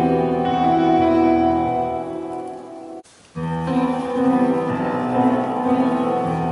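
Piano music: one piece fades out about halfway through, there is a brief moment of quiet, and another piece begins.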